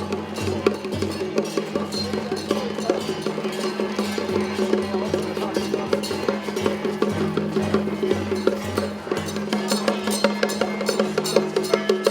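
Traditional percussion music: rapid, busy wood-block-like strikes and drums over steady held tones, going on without a break.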